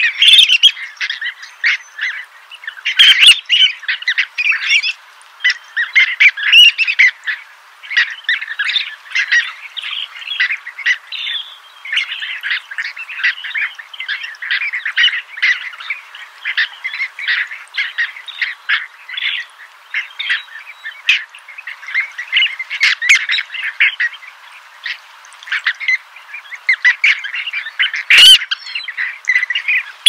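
A flock of birds calling all at once, a dense unbroken chatter of short overlapping calls, swelling louder in places.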